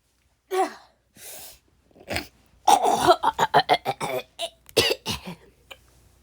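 A person in a coughing fit: one cough, a breath, then a rapid run of short hacking coughs for a few seconds. It is a smoker's cough, which the cougher blames on cigarettes.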